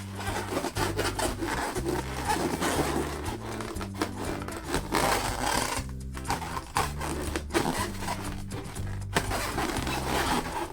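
Latex balloons being rubbed and squeezed, giving a continuous rough rubbing texture with small clicks, over background music with a stepping bass line.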